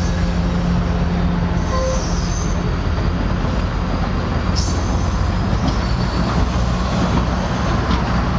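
Streamlined stainless-steel passenger cars rolling past: a steady low rumble of wheels on rail, with brief high-pitched wheel squeals a few times.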